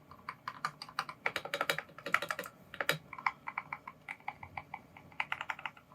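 Typing on a custom 65% mechanical keyboard (KBD67 Lite R2) with INK Black linear switches lubed with Krytox 205g0 and filmed: quick runs of keystrokes with short pauses between them. The sound is described as very plucky.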